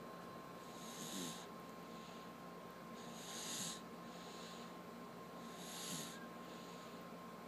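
A sleeping baby snoring softly: three hissy, snuffly breaths about two and a half seconds apart, with fainter breaths between them.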